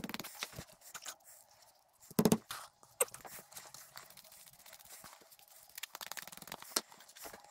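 Bristle brush scraping and dabbing epoxy onto thin mahogany veneer, an irregular scratchy sound, with a brief loud vocal sound about two seconds in.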